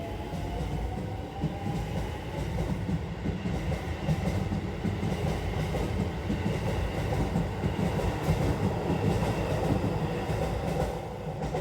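Electric commuter train on the Keisei line passing over a level crossing. Its wheels rumble and clatter on the rails, and a faint motor whine rises in pitch over the first few seconds. The sound grows louder, then falls away near the end.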